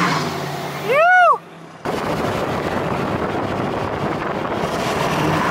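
Wind buffeting a microphone held out the window of a moving pickup truck, over steady road noise. About a second in there is a short pitched sound that rises and falls, and just after it the sound drops out for half a second.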